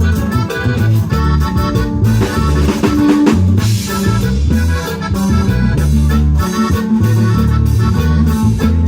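Live band playing an instrumental passage with electric bass, drum kit and electronic keyboard, with a drum fill and cymbal crash about three seconds in.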